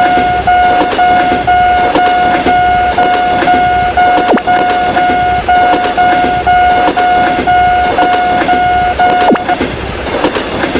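Railroad crossing warning bell ringing in a repeating tone, about two rings a second, over the rhythmic clickety-clack of a passing train's wheels. The bell stops near the end while the train sound runs on.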